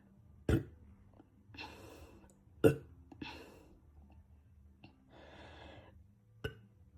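Three short, sharp burps from a man gassy from drinking Coke, the middle one the loudest.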